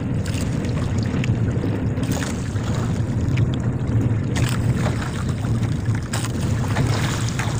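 Steady low rumble of wind buffeting the microphone over choppy sea aboard a small outrigger fishing boat, with a few light knocks.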